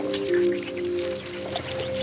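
Calm ambient relaxation music with held, slowly shifting notes, over scattered light patter like dripping water.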